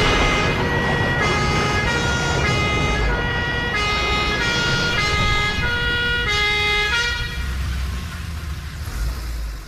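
Instrumental introduction of a stage-musical number: a bright melody of short held notes with many overtones, two or three notes a second, over a low bass. The melody stops about seven and a half seconds in, leaving the low bass.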